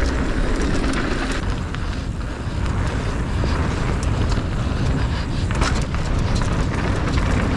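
Mountain bike descending a dirt singletrack at speed: steady wind rumble on the microphone and tyres rolling over the dirt, with scattered clicks and rattles from the bike.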